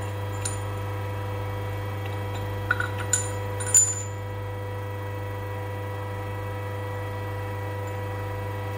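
A steady low electrical hum with faint higher tones runs throughout. A few light metallic clinks come about three to four seconds in, as the shock absorber's steel rod and piston assembly is pulled out of the monotube body and handled.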